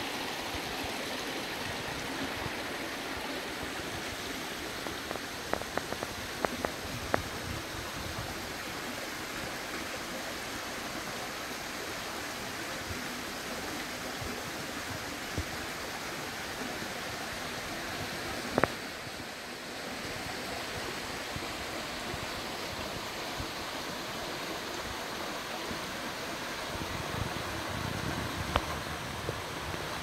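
Shallow mountain stream running over rocks: a steady rush of water. A few faint clicks come through, and a deeper rumble near the end.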